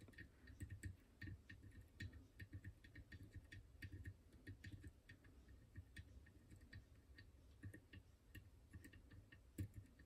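Faint, irregular little clicks, several a second, from the pins of an Izis lock as steel picks push them in through its face holes: each tiny click is a pin shifting a fraction before another binds, the pins taking turns binding. A soft rumble of fingers handling the picks lies underneath.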